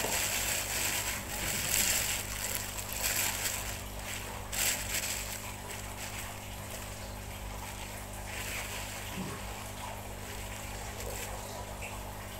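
A clear plastic bag of fish heads crinkling and rustling as hands open it and dig into the wet contents. The crinkling is busiest in the first few seconds, with a sharp crackle about four and a half seconds in, then it settles to a softer rustle.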